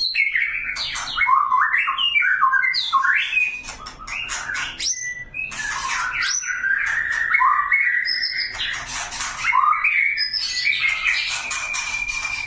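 Male white-rumped shama (murai batu) singing a loud, continuous, varied song of quick slurred whistles mixed with harsh chattering notes, with a few longer held whistles in the second half. It is a male calling to a female to mate.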